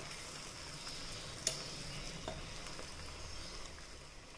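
Coconut oil sizzling steadily as two gulab jamun balls deep-fry in a small steel pan, with a steel ladle knocking lightly against the pan about a second and a half in and again just after two seconds.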